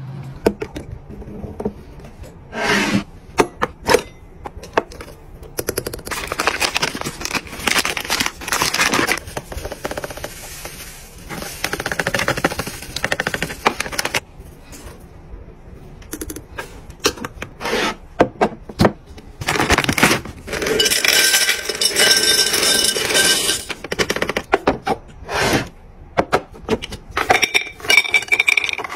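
A run of restocking sounds: syrup poured into a glass bottle, coffee poured from a plastic bag into a metal canister, and wrapped peppermint candies tumbling and clinking into a glass jar near the end. Many small clicks, knocks and rustles come in between, with a long stretch of rattling pouring partway through.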